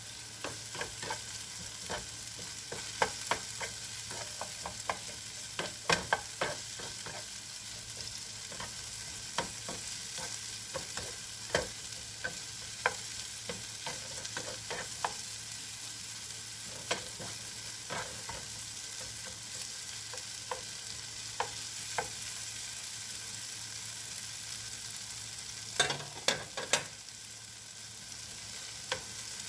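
Shrimp and vegetables sizzling steadily in a frying pan while a plastic spatula stirs them, scraping and clicking against the pan. There are a few sharper knocks near the end.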